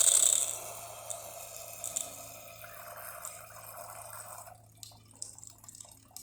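DeLonghi Magnifica XS espresso machine dispensing hot water through its wand: a loud hiss at the start fades into water running and dripping. The flow stops about four and a half seconds in, leaving a few scattered drips.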